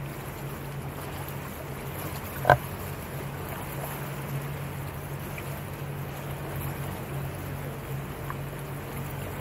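Small motorboat's engine running steadily, a low, even drone under a wash of water and wind noise. A single short knock about two and a half seconds in.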